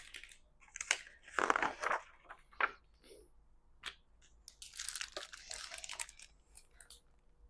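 Paper and cover of a picture book rustling and crinkling as it is handled, with a few louder crackles a second or two in and a longer rustle past the middle.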